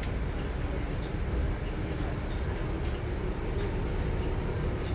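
Steady low rumble inside the passenger cabin of a 2022 Nova Bus LFS HEV hybrid-electric city bus under way, with a faint click about two seconds in.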